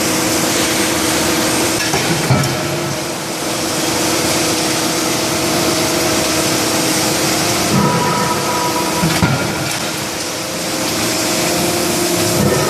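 CNC hydraulic die forging hammer working in a forge shop: a few separate heavy blows at irregular intervals over a loud, steady hiss and hum of the running machinery.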